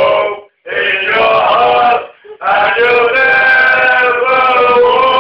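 Drunken male singing, loud and bawled, in phrases with short breaks between them and long held notes in the second half.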